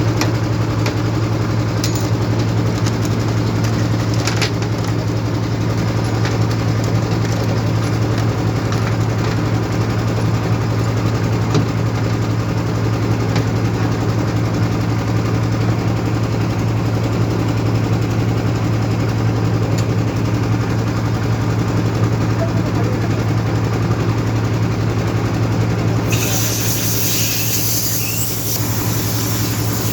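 Daewoo 120 engine running at a steady idle, a constant low hum. A high hiss joins about four seconds before the end.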